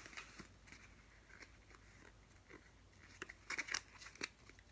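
Faint handling of game cards: scattered soft clicks and rustles, with a short run of sharper clicks about three and a half to four seconds in.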